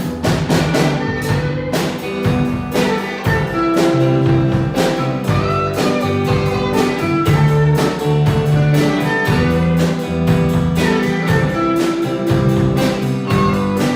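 Band playing an instrumental passage with no vocals: guitar over sustained bass notes and a steady drum-kit beat.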